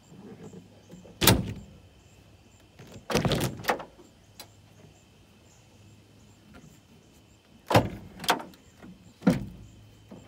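Heavy clunks and knocks from a pickup tailgate being worked: one about a second in, a quick cluster around three seconds in, and three more near the end.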